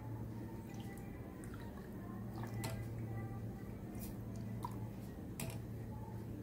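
Silicone spatula stirring milk and sugar in a stainless steel pot: liquid swishing, with scattered light clicks and taps of the spatula against the pot, over a steady low hum.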